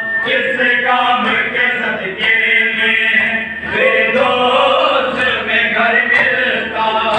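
Men's voices chanting a noha, a Shia lament, in long drawn-out melodic lines.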